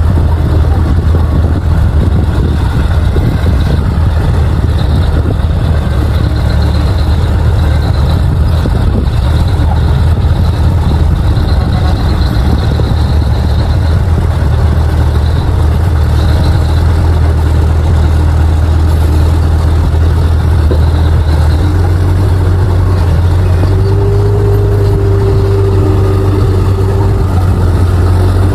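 Bulldozer's diesel engine running loud and steady with a deep low drone. About two-thirds of the way through the engine note shifts slightly and a higher steady whine joins in.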